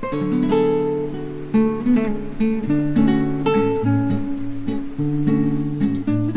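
Background music: an acoustic guitar playing plucked and strummed chords at a steady pace.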